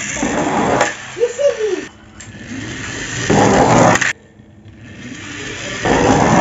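A plastic toy cement mixer truck pushed back and forth by hand, its wheels and gears whirring in about four swelling bursts that each stop abruptly.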